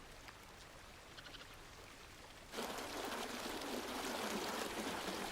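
Near silence with a few faint ticks. About halfway through, a steady rush of water suddenly begins, like running water or rain, and keeps going.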